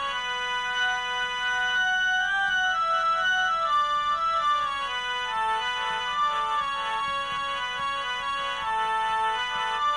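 Instrumental ringtone music: a melody of held notes stepping up and down in an organ-like keyboard tone over a steady low drone.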